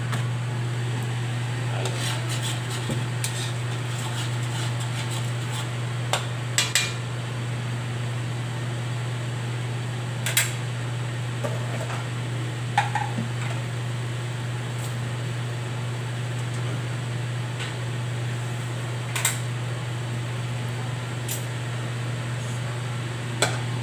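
A metal spatula clinks against a metal wok now and then, about half a dozen short sharp clinks spread out, over a steady low hum.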